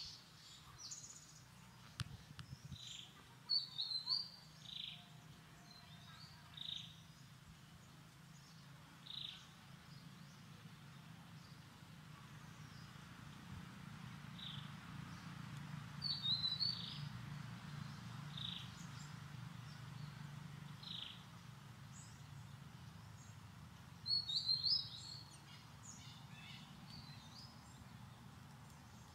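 Short high-pitched chirps, each a quick falling note, repeating every second or two. Quick twittering clusters come about four, sixteen and twenty-four seconds in, over a low steady hum.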